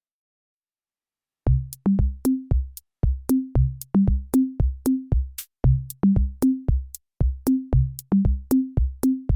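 Background electronic music: a drum-machine beat with a bass line. It starts suddenly about a second and a half in, after silence.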